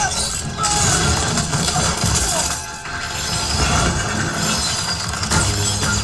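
Film sound mix of a ram-drawn war chariot racing over a frozen river: a dense clatter and rumble of wheels and hooves on ice with cracking, shattering ice, under orchestral score.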